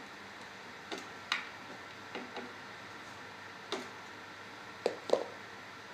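Scattered clicks and light knocks of parts being handled during hands-on work on a mobility scooter, about seven in all at uneven intervals, the loudest two close together near the end, over a faint steady hum.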